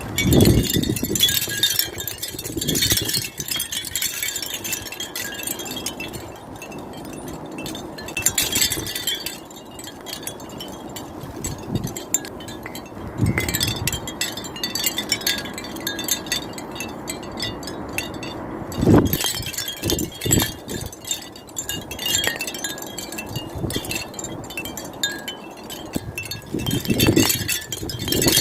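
Small garden wind chimes tinkling and clattering irregularly as gusts move them, busier at some moments and sparser in the lulls between. There are occasional short low rumbles, the loudest near the start and at about 19 seconds.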